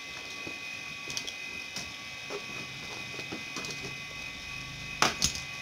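Scattered light taps and handling noises over a faint steady high whine, with two sharp clicks close together about five seconds in.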